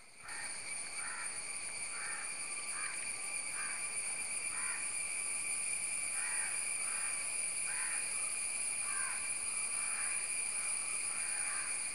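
A bird calling over and over in short, harsh, crow-like calls, about two a second, over a steady high-pitched whine.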